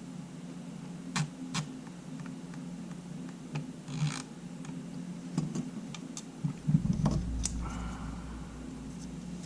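Scattered small clicks, taps and a brief scrape of tools and camera parts being handled on a workbench, over a steady low hum; a cluster of louder knocks comes about seven seconds in.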